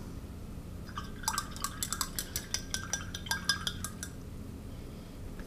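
Paintbrush being rinsed in a glass jar of water, clinking against the glass again and again in quick succession. The clinks start about a second in and stop about three seconds later.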